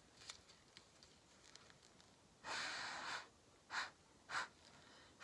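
Breathy puffs of air: one long airy exhale about two and a half seconds in, then two short puffs.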